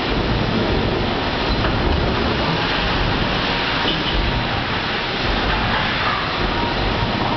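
Steady factory-hall background noise: an even low rumble with hiss above it, no distinct strokes or impacts.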